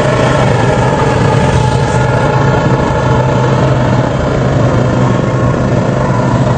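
Kubota DC70 Pro combine harvester's diesel engine running steadily at a loud, even level with a constant low hum as the machine drives along.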